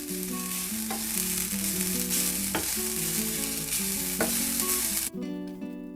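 Grated coconut sizzling in a hot frying pan as it is stirred, with three sharp taps of the spatula on the pan. The sizzle cuts off suddenly about five seconds in.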